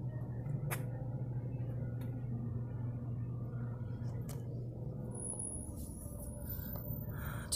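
2010 Trane XB14 2.5-ton air conditioner condensing unit running, a steady low hum from its compressor and condenser fan, with a few faint clicks.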